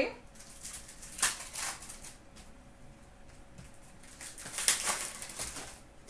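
Upper Deck hockey trading cards being handled and flicked through: a few short rustles and snaps of card stock, a pair about a second in and a cluster a little before the end, over a faint steady hum.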